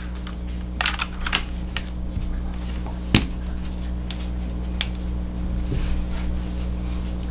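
Scattered, irregular clicks of keys being pressed on a Rapoo V500 Pro mechanical keyboard with clicky blue switches, over a steady low hum.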